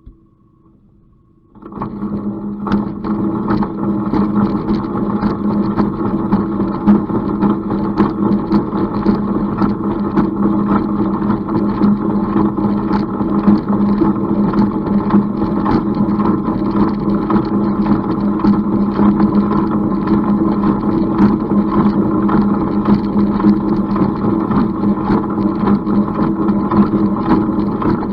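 Engine running steadily at a constant speed, cutting in abruptly about a second and a half in after a faint steady hum.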